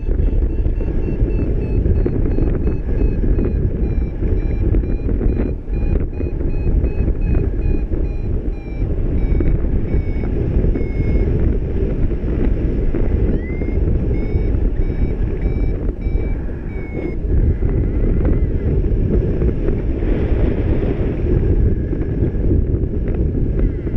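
Wind rushing hard over the microphone, with a paragliding variometer beeping in a quick series of short high tones that shift slightly in pitch; the beeping stops about 17 seconds in.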